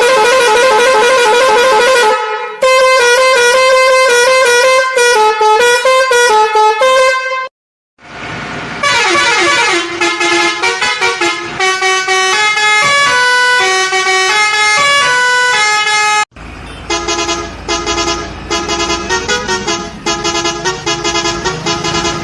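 Electronic tune with a horn-like tone, playing quick notes that step up and down. It breaks off abruptly about two and a half seconds in, goes silent briefly near eight seconds, and changes again around sixteen seconds.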